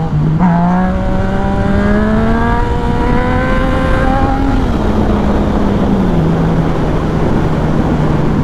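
Yamaha FZ-09 inline-triple motorcycle engine pulling hard under acceleration, its pitch climbing for about four seconds. It then drops in two steps as the throttle comes off, with heavy wind noise buffeting the helmet microphone.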